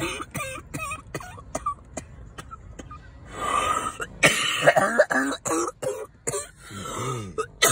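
A person coughing over and over: a run of short, sharp coughs mixed with throaty throat clearing.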